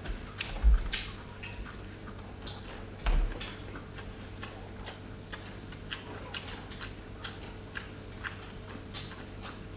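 Light, irregular clicks and taps of spoons and dishes at a meal table, with two dull thumps, the louder one about a second in.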